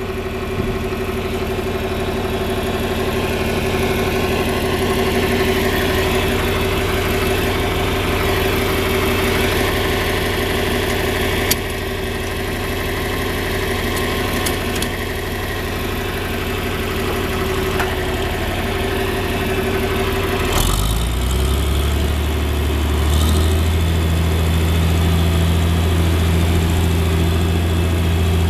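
1963 John Deere 4010 tractor's six-cylinder engine running steadily at idle. About two-thirds of the way in its note drops and gets heavier and louder, and it steps up again a few seconds later.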